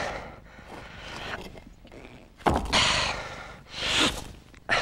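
A man's heavy, breathy panting: a long, loud exhalation about two and a half seconds in, then two shorter gasps near the end, the breathing of someone worn out by heavy straining effort.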